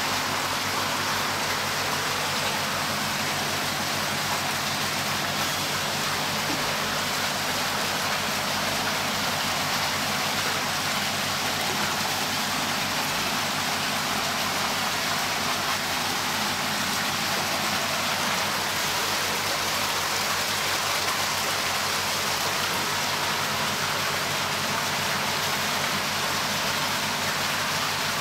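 Steady hiss of rushing or falling water, unchanging throughout, with a low steady hum underneath.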